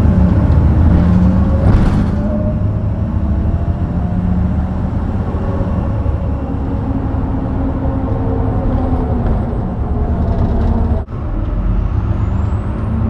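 Heuliez GX327 city bus's diesel engine pulling under acceleration, its pitch climbing slowly. There is a short hiss about two seconds in. About eleven seconds in the sound drops out sharply for a moment as the ZF 5HP 504C automatic gearbox changes up, and then the pitch climbs again.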